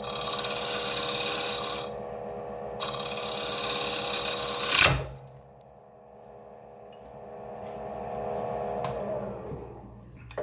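Scraper cutting the inside of a spinning canary wood bowl on a wood lathe, a loud steady hiss over the lathe's hum, breaking off once for about a second. About five seconds in, a sharp bang as the tool catches in the wood, after which only the lathe runs, its hum fading near the end.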